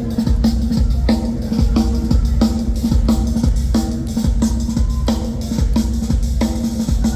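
A live band playing without vocals: a drum kit keeps a steady beat under a repeating low note.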